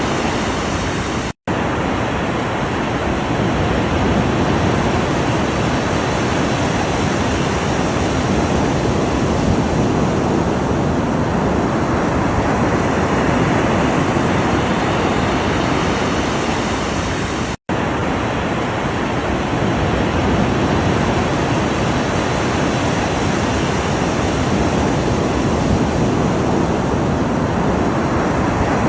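Ocean surf: a continuous, even wash of breaking waves with little rise and fall. It cuts out to silence for a split second twice, once about a second and a half in and again about seventeen seconds in.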